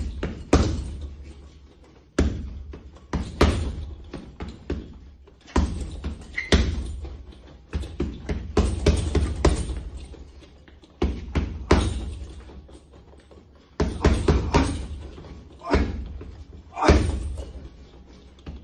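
Boxing gloves punching a hanging heavy bag: loud, sharp thuds in quick combinations of two to four hits, with pauses of about a second between combinations and a short echo after each hit.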